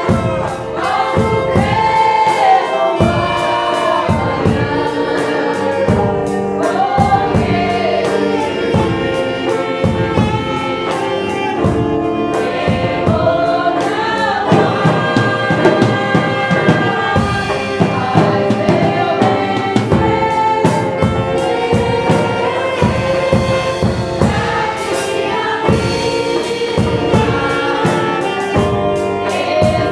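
Gospel song: several voices singing together over full instrumental backing with a steady beat.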